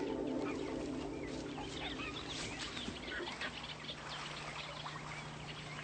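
Birds chirping and twittering in many short, quick calls, fairly faint, over a faint steady low hum.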